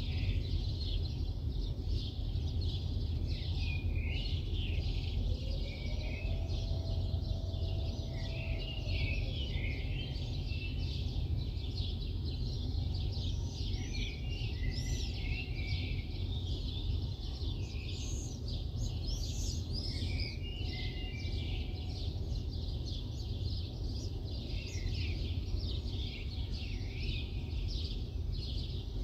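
A chorus of many small birds chirping and trilling at once, in quick overlapping calls, over a steady low rumble of the city.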